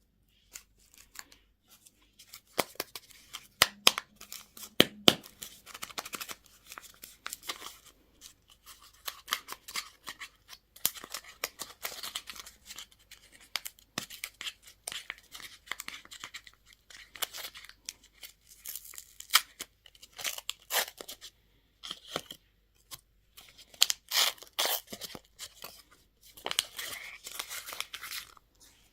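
Candy packaging being opened by hand: irregular tearing and crinkling of wrappers with sharp clicks, in bursts and pauses.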